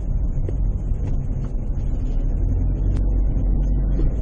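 Car engine and tyre noise heard from inside the cabin while driving steadily up a parking-garage ramp: a continuous low rumble.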